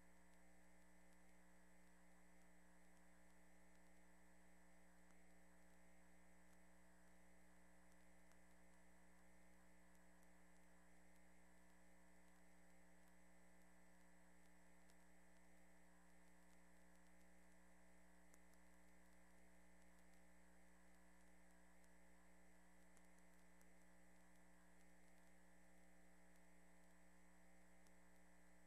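Near silence: a faint, steady electrical hum that does not change.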